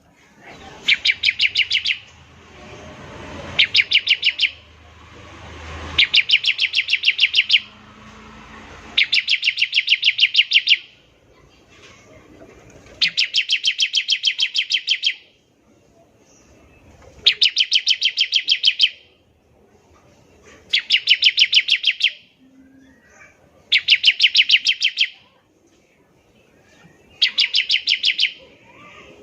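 Bar-winged prinia (ciblek) giving rapid machine-gun trills, the 'nembak ngebren' call used as a lure to get other prinias singing. Each trill is a fast string of sharp, high notes lasting a second or two, repeated about nine times with short pauses between them.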